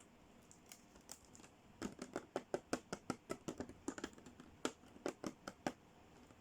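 Small plastic toy pieces being handled: a quick, uneven run of sharp clicks and taps, starting about two seconds in and stopping near the end.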